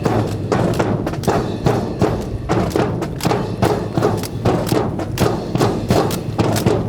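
A drill team's rifles and boots clacking and thudding in a fast, even rhythm, about three to four sharp wooden knocks a second, as the rifles are slapped, struck and grounded in unison.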